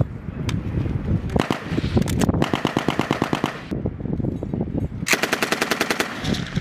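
M240B machine guns firing on a range: two long bursts of about a second each, at roughly a dozen rounds a second, one about two and a half seconds in and one about five seconds in, over steady gunfire from other guns on the line.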